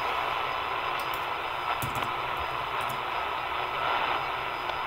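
Shortwave radio static from a Tecsun PL-330 receiver, a steady hiss while tuned to a weak signal that cannot be made out, with a few faint clicks.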